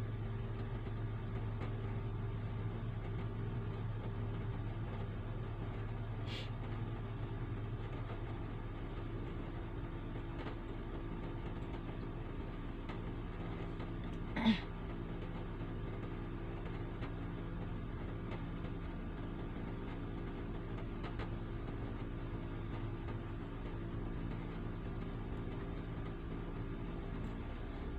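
A small motor running with a steady low hum. One short knock about halfway through, and a fainter click earlier on.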